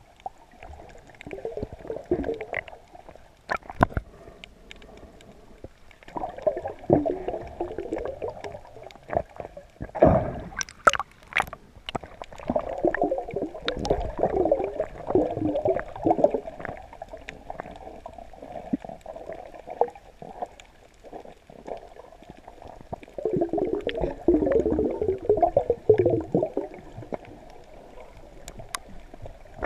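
Muffled underwater gurgling and swirling water heard by a submerged camera, rising in surges of a few seconds, with a few sharp knocks.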